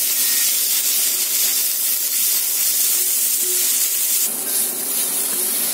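Broccoli florets frying in a little oil with spices in a wok over low-medium heat, a steady sizzling hiss as they are turned with a wooden spatula.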